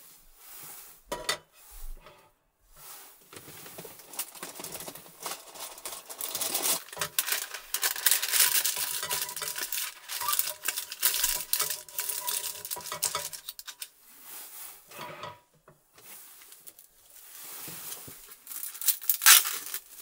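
Cookware and food packaging being handled at a camp stove: a pan and utensils clinking and knocking, with wrapping crinkling and tearing, and a sharp clatter near the end.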